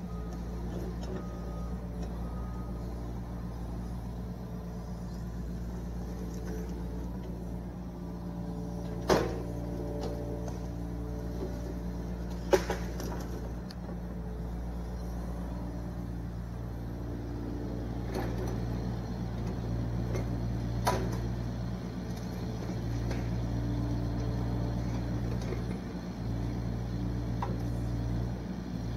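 Yanmar SV40 mini excavator's diesel engine running steadily, getting a little louder in the second half. Two sharp knocks stand out about nine and twelve seconds in.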